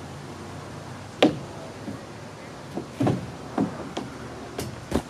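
About six irregular knocks or thumps, the loudest about a second in, the rest coming in the last two seconds.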